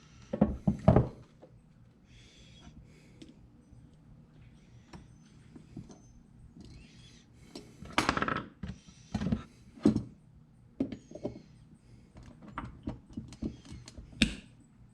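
Needle-nose pliers and small metal carburetor parts clicking and knocking as a pin is worked back and forth to free it from a 1972 Honda CB450 carburetor. There are a few louder knocks about a second in, around the middle and near the end.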